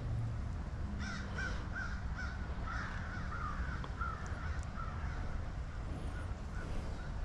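A bird calling in a run of short repeated calls, about three a second, starting about a second in and tapering off near the end.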